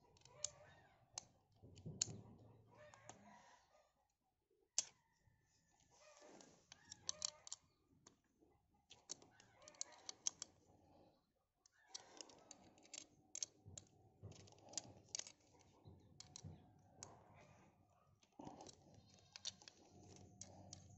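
Faint, irregular small clicks and taps of metal on metal as an aluminium chainsaw bracket is handled and screwed onto an angle grinder's gear head.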